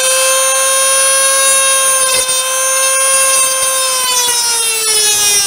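Small corded power tool with an abrasive cut-off wheel cutting through a steel threaded rod, throwing sparks: a loud, steady, high-pitched whine whose pitch drops a little about four seconds in.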